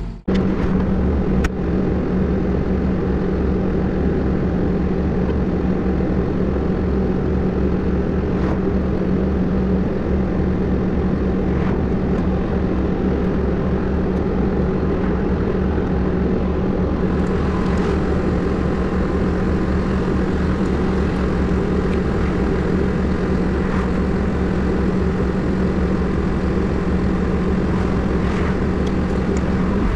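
Diesel engine of a Hepco HLB95 backhoe loader left running at idle, a steady unchanging drone with a fast low throb.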